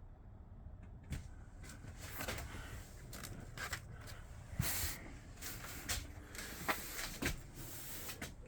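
A string of irregular sharp knocks and clicks with rustling, from someone moving about and handling things inside a motorhome, starting about a second in.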